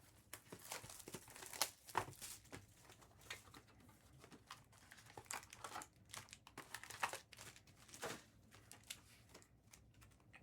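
Trading card packaging being opened: plastic wrapping crinkling and tearing in faint, irregular crackles.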